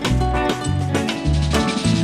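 Upbeat background music: a bass line stepping from note to note under pitched instruments, with sharp, regular percussion hits.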